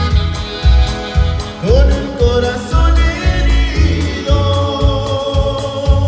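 Live conjunto band playing with saxophone, accordion, guitars and drums over a steady beat. About two seconds in, a melody line slides up in pitch and holds.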